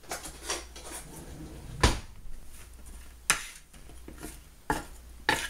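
Kitchen handling noises: a run of sharp knocks and clatters on the counter and cookware, the loudest a dull thump a little under two seconds in.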